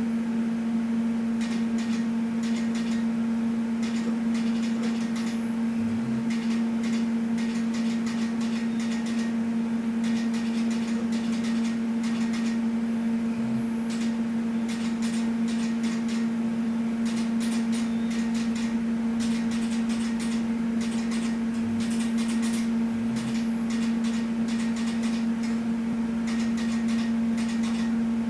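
Pulsed laser welder doing build-up welding on NAK80 mould steel: the machine runs with a steady electrical hum, over which irregular runs of sharp ticks come as the laser fires.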